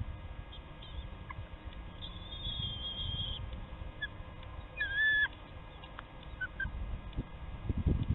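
High, thin calls from bald eagles at the nest: a wavering whistle lasting just over a second about two seconds in, then a short, louder chirp about five seconds in, with a few faint peeps between, over an uneven low rumble.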